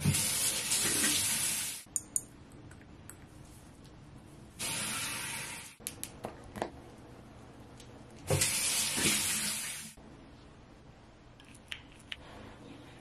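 Bathroom sink tap running in three short bursts of about one to two seconds each, with small clicks and knocks of handled toiletry bottles in the quiet gaps between.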